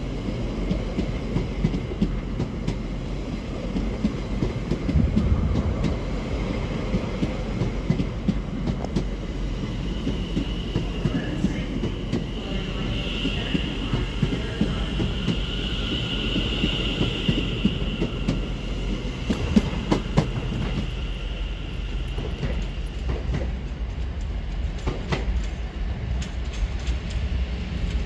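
British Rail Class 720 Aventra electric multiple unit moving along the platform: steady wheel and running rumble, with a high whine that swells and fades in the middle, and sharp clicks from the wheels over rail joints later on.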